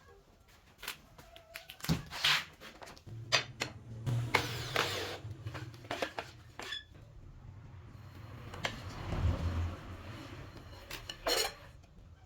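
Workshop handling sounds: scattered light knocks and clicks of wood and tools being set down and moved, with some rubbing. There is a brief low hum a few seconds in.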